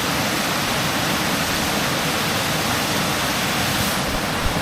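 Waterfall rushing: a steady, loud wash of falling water with no breaks.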